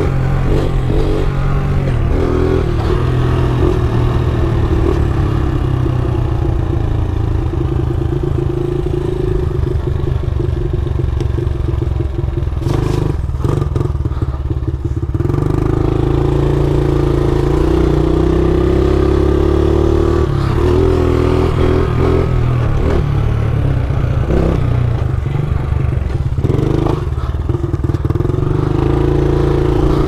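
Pit bike's small single-cylinder engine running while riding, its note fairly steady, rising a little and easing back in the second half, with a short burst of noise about halfway through.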